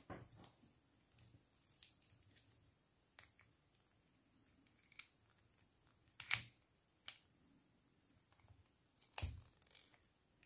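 Scattered small clicks and taps from handling and refitting the parts of a spinning reel. Two sharper clicks stand out, one past the middle and one near the end.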